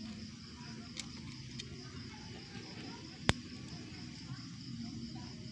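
Crickets chirping steadily in the background, with one sharp click about three seconds in and a fainter one about a second in.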